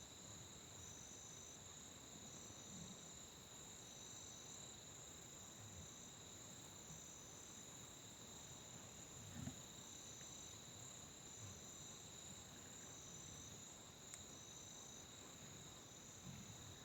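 Faint chorus of evening insects in open country: two steady high trills, with a third pulsing on and off about every second and a half. A soft low thud about halfway through.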